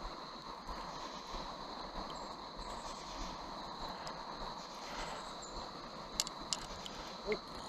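Steady rush of river water flowing over rocks, with a few faint clicks about six seconds in.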